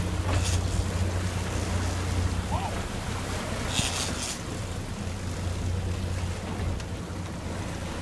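Sport-fishing boat's engine running steadily under the rush of its wake water and wind on the microphone, with a brief hiss about four seconds in.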